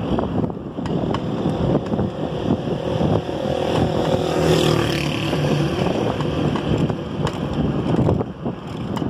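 Wind rumbling on the microphone of a moving rider, with road traffic around him; a motor vehicle's engine passes close by in the middle.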